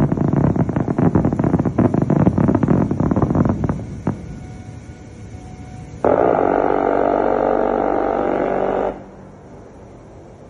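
US embassy counter-rocket air-defence gun (C-RAM, a 20 mm rotary cannon) firing at a drone. A rough, crackling rumble fills the first few seconds, then after a short lull comes one continuous burst of about three seconds that starts and stops abruptly.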